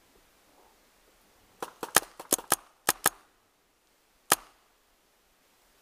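Paintball markers firing: a quick string of about seven sharp shots, then a single shot about a second later.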